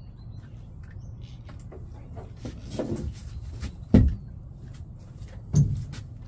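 A few hollow knocks and thumps in an aluminum fishing boat, the loudest about four seconds in, over a steady low hum.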